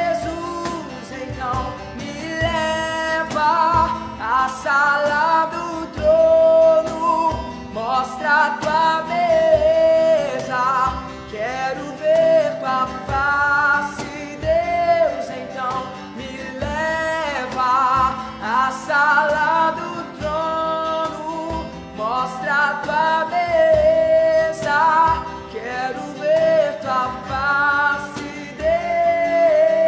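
A male voice singing a slow melody with long held notes, accompanied by strummed acoustic guitar and a cajón keeping the beat.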